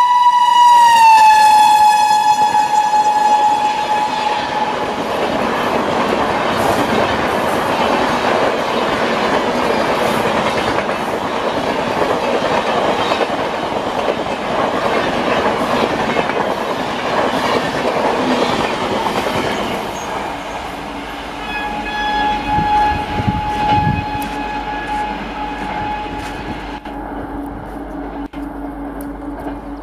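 WAP-7 electric locomotive sounding a loud horn whose pitch drops as it passes, followed by the rumble and clickety-clack of the Rajdhani's coaches running past at speed. The noise fades after about twenty seconds as the train draws away, with a fainter horn tone in the distance.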